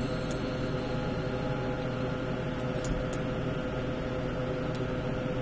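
Steady background hum and hiss, with a few faint clicks.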